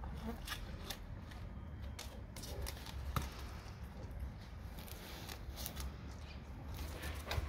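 Dog chewing and crunching a raw salmon head, with irregular sharp cracks and wet clicks as its teeth work through the bones.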